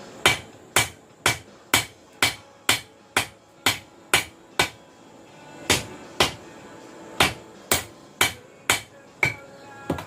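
Hammer blows on an anvil forging a steel cable Damascus billet: evenly paced strikes about two a second, with a pause of about a second halfway through.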